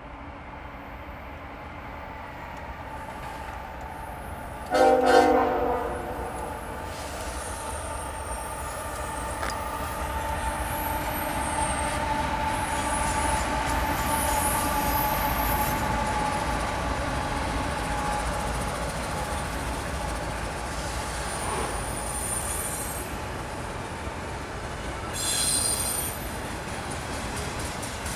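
A diesel locomotive horn gives one short, loud blast about five seconds in. BNSF GE ES44C4 diesel-electric locomotives then rumble past, growing louder to a peak and easing. An intermodal freight train follows, its cars rolling by with a brief high-pitched wheel squeal near the end.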